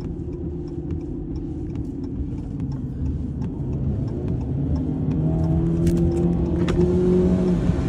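Car engine and road rumble from a moving vehicle, the engine note stepping up in pitch a little past the middle as it speeds up, with scattered light ticks.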